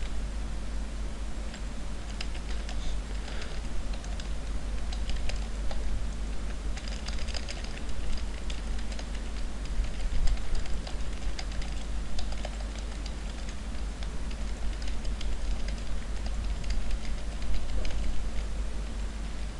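Typing on a computer keyboard: a fast, irregular run of keystroke clicks, over a constant low electrical hum.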